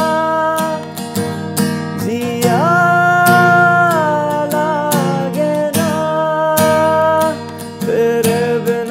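Acoustic guitar strummed steadily, with a man singing long wordless held notes over it; about two seconds in his voice slides up into a high note held for well over a second.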